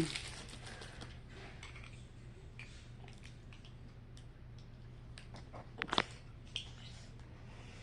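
Faint scattered clicks and crinkles of a toy figure's plastic and cardboard packaging being opened and handled, with a sharper click about six seconds in, over a low steady hum.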